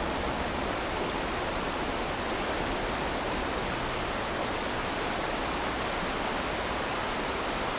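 Shallow rocky creek running over stones: a steady rush of water.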